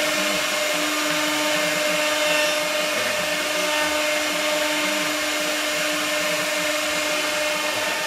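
CNC router spindle running with its end mill cutting a finishing pass through glued-up wooden stock: a steady whine over a constant rushing noise.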